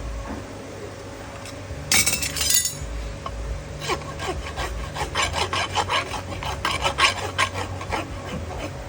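Farrier's hand tools working on a horse's hoof: a scraping burst about two seconds in, then a quick run of short scraping and clinking strokes, about three or four a second.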